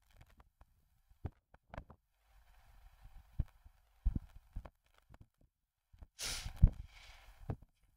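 Scattered soft knocks and clicks, with a brief burst of rustling noise about six seconds in.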